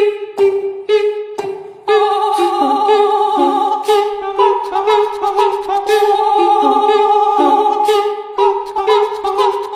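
Music with a vocal melody: short percussive hits under pitched notes for about two seconds, then a run of sustained melody notes that starts fading out at the very end.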